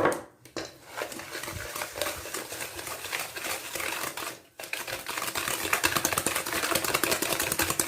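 Eggs and sugar being whisked by hand in a bowl: a fast, steady clicking of the whisk against the bowl, with a brief pause about four and a half seconds in.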